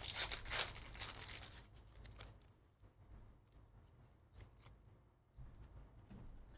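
A foil trading-card pack being torn open and crinkled, loudest in the first second or so, followed by faint clicks of cards being handled.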